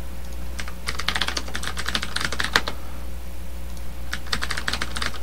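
Computer keyboard typing in two quick bursts, first a username and then a password, starting about a second in and again about four seconds in, over a steady low hum.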